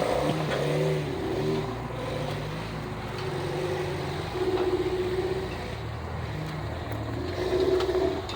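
Off-road vehicle engine revving up and dropping back over and over, in short pushes of throttle while crawling up a rocky climb; the strongest pushes come about halfway through and near the end.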